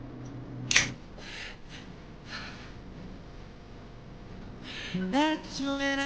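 A single sharp click under a second in, then a few soft breathy puffs. From about five seconds in, a sung melody of a background song comes up.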